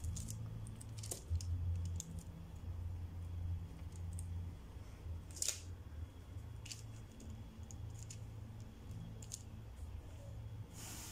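Masking tape being torn off and pressed down by hand onto paper and board: scattered small rips, clicks and rustles, with one louder one about halfway through, over a faint low hum.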